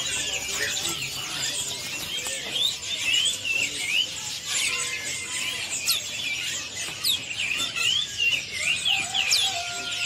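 Many caged birds chirping and whistling at once, a dense mix of short rising and falling calls with an occasional sharper upward whistle.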